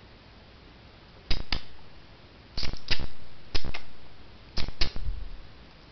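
Sharp clicks in quick pairs, starting about a second in: four pairs, roughly one pair a second.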